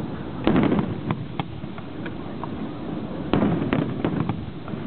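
Fireworks exploding: a loud bang about half a second in, another near three and a half seconds followed by a quick run of sharper reports, with scattered smaller pops and crackles between.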